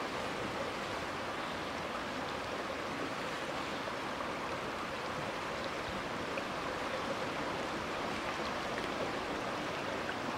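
Flowing river floodwater, a steady, even rush of moving water.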